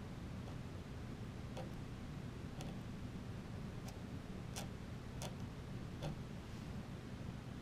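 Pen nib clicking against paper in short inking strokes: sharp little ticks at uneven intervals, under a second apart or a little more, over a steady low hum.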